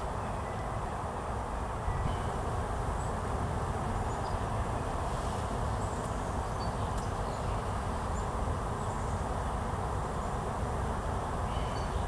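Steady low outdoor rumble with no distinct source, and a few faint, brief high bird chirps scattered through it.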